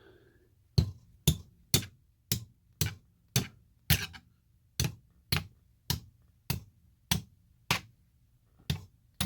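Sharp, regular hammer taps on a rock, about two a second with a short pause near the end, striking it to split it open along its layers.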